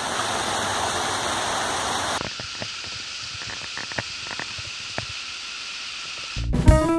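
Steady rush of a rocky cascading waterfall, which drops after about two seconds to a quieter, more distant rush with a few faint ticks. Music with guitar and drums comes in near the end.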